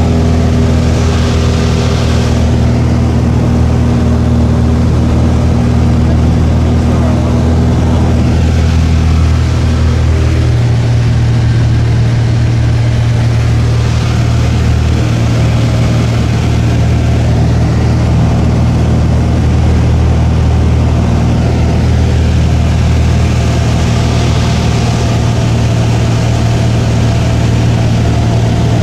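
Cessna 172's piston engine and propeller droning steadily in flight, heard inside the cabin. The low hum changes its tone about ten seconds in.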